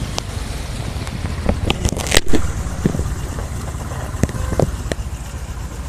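Steady low rumble of vehicles on a flooded road, with scattered sharp clicks and a louder knock about two seconds in.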